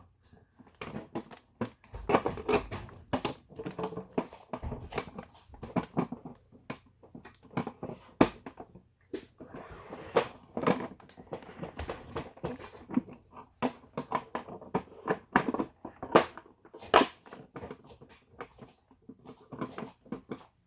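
Small plastic toy pieces and packaging being handled: irregular clicks, taps and crinkling rustles as they are unwrapped and fiddled with.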